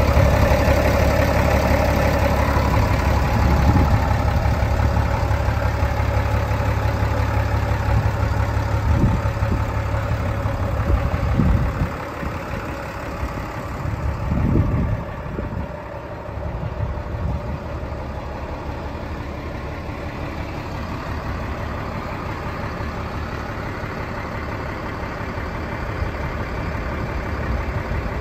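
Case IH Maxxum MXU125 tractor's diesel engine idling steadily, with a deep rumble that drops to a quieter level about twelve seconds in.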